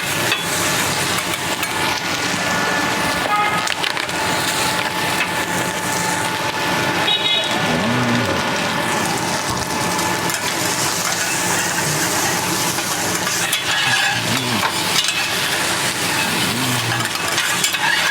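Fried rice sizzling on a teppanyaki iron plate as it is stir-fried with metal spatulas: a steady frying hiss with stirring and scraping.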